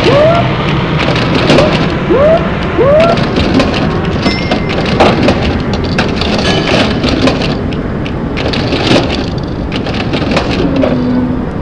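A dense pile-up of many sound-effects-record tracks playing at once, making a continuous roar like rain and thunder. Many clicks and knocks run through it, along with scattered steady tones and, in the first few seconds, a string of short rising calls.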